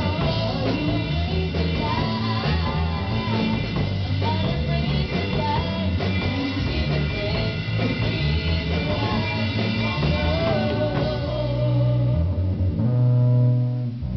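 Live gospel band of electric guitar, bass, drums and keyboard, with two women singing. The song closes on a loud held final chord near the end.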